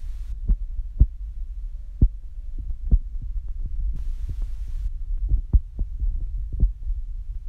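Steady low wind rumble on a phone microphone, with dull irregular thumps about once a second from the walking camera-holder's footsteps and handling. There is a brief hiss about four seconds in.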